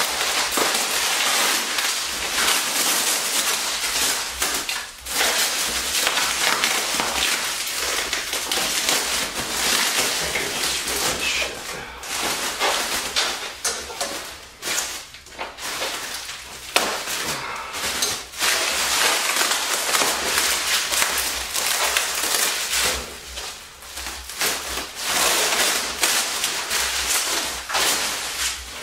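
Bubble wrap and plastic film crinkling and rustling as they are handled and pulled off by hand, a dense run of crackles broken by a few short pauses.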